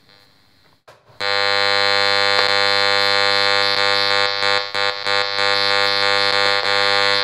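Audio output of a high-frequency RF meter picking up a DECT cordless phone's radio signal. After a quiet first second, a loud, steady buzz starts: the phone's pulsed radiation made audible by the meter.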